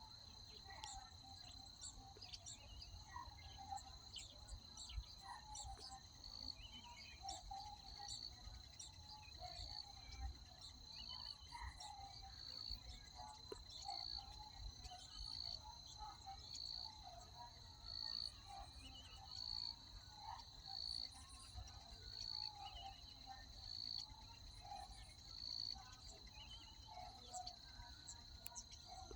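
Insects, crickets by their sound, keep up a steady high trill, with a short note repeating about every second and a half. Birds chirp faintly at a lower pitch.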